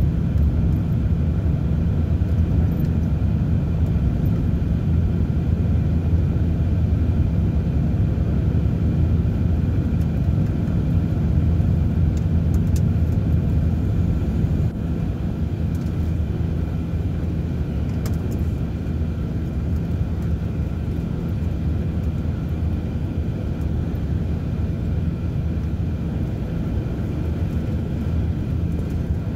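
Steady low rumble of road and engine noise heard inside a vehicle travelling at highway speed, dropping slightly in loudness about halfway through.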